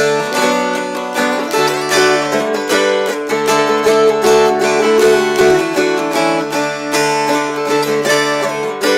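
Two mountain dulcimers strummed together, a moving melody over a steady drone note.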